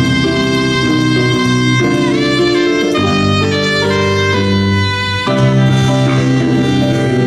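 Live jazz band playing, with long held melody notes over a bass line and a short pitch glide about two seconds in.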